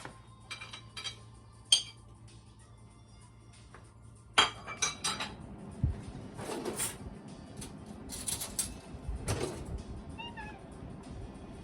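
Kitchenware clattering as food is prepared: a few sharp knocks, then a louder clatter about four seconds in, followed by more rattling and thuds. A cat meows once, briefly, near the end.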